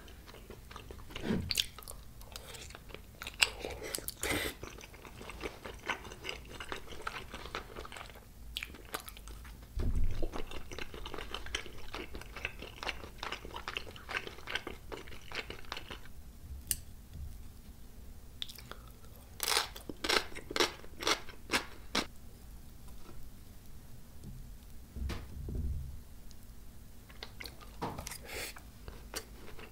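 Close-miked eating sounds: wet chewing of spicy tteokbokki in sauce, with many sharp clicks and short crunches scattered through.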